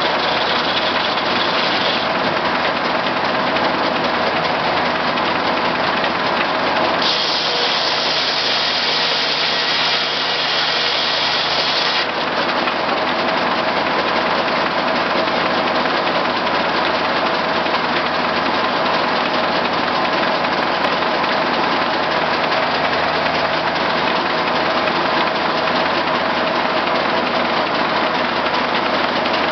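Case six-cylinder power unit running steadily, driving a J. A. Vance circular sawmill. A brighter high hiss rides over it for the first couple of seconds and again for about five seconds starting some seven seconds in.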